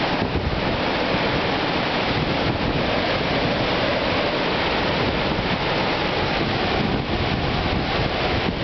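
Hurricane-force storm wind blowing steadily and heavily, buffeting the microphone.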